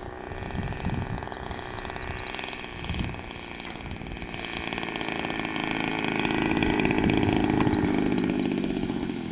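Radio-controlled model warbird's small piston engine running at a fast idle through a landing, set that way by a high idle trim. It grows louder about five seconds in, peaks around seven to eight seconds, then eases.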